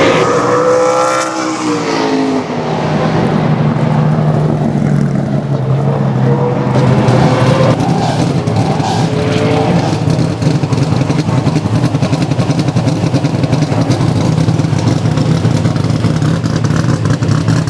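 A Super Late Model race car's V8 passes at speed, its pitch dropping as it goes by. From about three seconds in, a race car's V8 idles steadily with a fast, even pulse.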